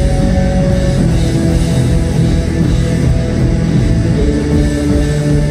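Rock band playing live and loud: electric guitars, bass and drum kit, with no singing in this stretch.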